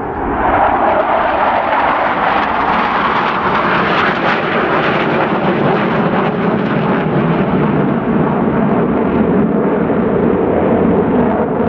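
Blue Angels F/A-18 Super Hornet jets in Diamond formation making a pass: a loud jet roar that builds within the first second and stays loud. Its hiss gives way to a deeper rumble in the second half as the jets go by.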